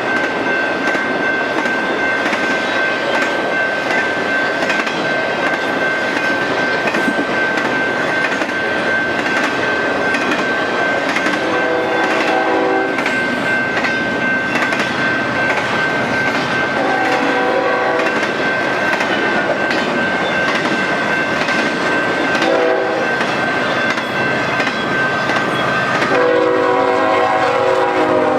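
A BNSF freight train passing close, its wheels clacking steadily over the rails, with a steady high-pitched tone running under it. Partway through, the locomotive horn sounds two long blasts, one short, and a final long blast near the end: the standard grade-crossing signal.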